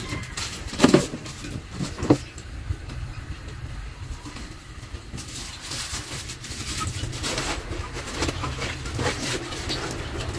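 Scattered clicks and knocks of hand work on a washing machine's wiring, with two sharper knocks about one and two seconds in, over a steady low hum.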